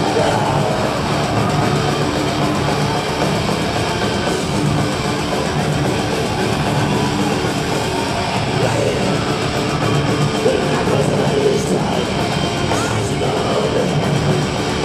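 A black metal band playing live with distorted electric guitars, loud and dense, recorded from within the concert crowd.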